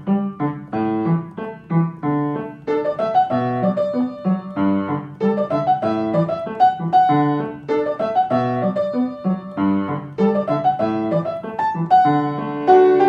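Piano music: a steady run of struck notes with chords in the low register, likely an instrumental stretch of a pop song.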